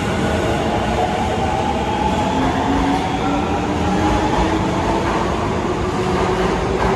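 Osaka Metro 22 series subway train departing a station. Its traction motors give a whine that rises slowly in pitch as it accelerates, over the steady rumble of wheels on the rails.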